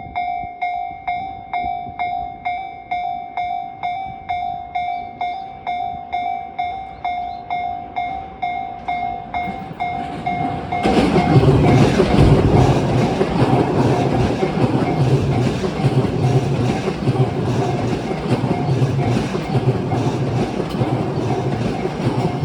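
Japanese level-crossing warning bell ringing at about two strikes a second. About ten seconds in, a Tobu 50000 series electric train passes over the crossing, its wheels beating in a steady rhythm over the rail joints while the bell keeps ringing underneath.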